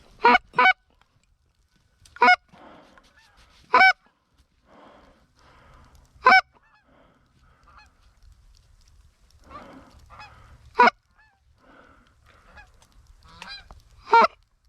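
Canada goose call blown by a hunter to call a single goose back: about seven loud, sharp honks spaced a second or more apart, with fainter honks and clucks between them.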